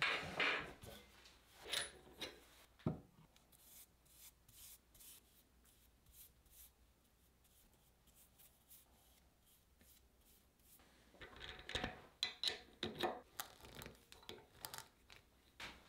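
Hand-work sounds on a stopped lathe: knocks and handling of a manzanita burl in the chuck early on, faint brush strokes on the burl in a quiet stretch, then a quick run of scrapes and clicks from a metal tool near the end.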